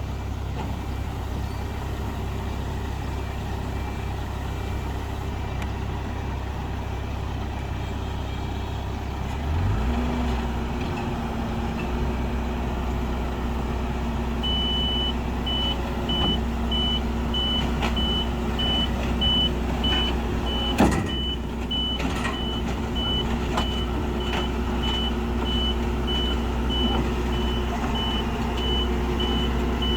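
Diesel engine of heavy earthmoving machinery running steadily, revving up about a third of the way in. From about halfway a reversing alarm beeps steadily, about two beeps a second, as the machine backs up. One sharp knock comes about two-thirds of the way through.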